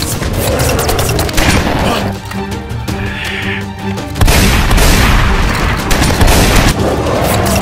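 Rapid movie-style gunfire and boom sound effects over action music. The shots drop out about two seconds in, leaving the music, and come back loud about four seconds in.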